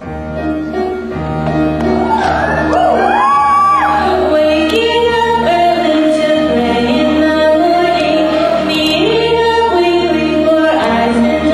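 A song with a voice singing sustained notes over instrumental accompaniment.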